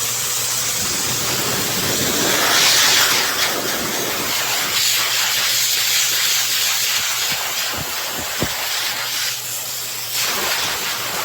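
High-velocity pet dryer blowing a steady, loud rush of air, swelling and easing a few times.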